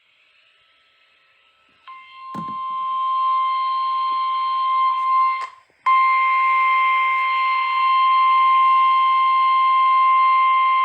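Emergency alert tone, the single steady 1050 Hz warning alarm tone of a weather-radio alert, sounding ahead of a flash flood warning. It comes in about two seconds in, swelling to full level. It drops out briefly around five and a half seconds, then resumes.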